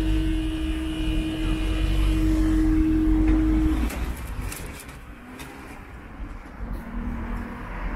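Level crossing barrier drive running with a steady hum as the boom rises, then cutting off about four seconds in as the barrier comes fully up. Fainter outdoor background follows.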